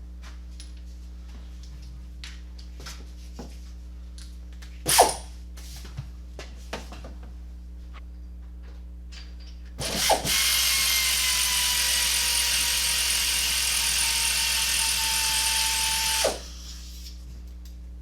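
Pneumatic air ratchet running for about six seconds, zipping out a spark plug: a loud hiss with a whine that drops slightly in pitch, then stops suddenly. Before it come a few light tool clicks and one louder knock.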